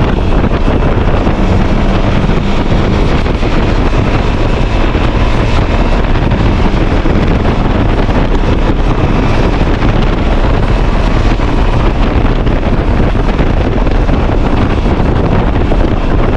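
Loud, steady wind rush on the microphone of a moving motorcycle, with the VOGE 300DS's running and road noise beneath it.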